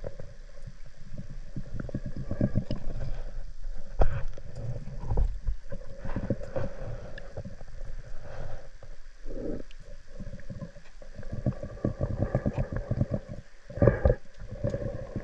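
Underwater river sound: flowing water crackling and gurgling irregularly over a low rumble, with a faint steady hum.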